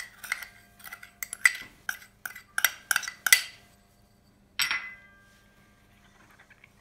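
A metal spoon clinking and scraping against a small ceramic bowl while sugar is spooned out of it: a quick run of about a dozen sharp, briefly ringing clinks over three and a half seconds, then one more clink a second later.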